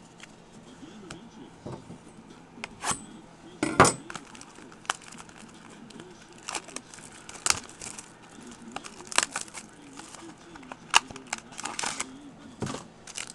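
Foil wrapper of a trading card pack crinkling and tearing as it is opened by hand, with cards being handled. Irregular crackles and clicks, the loudest about four seconds in.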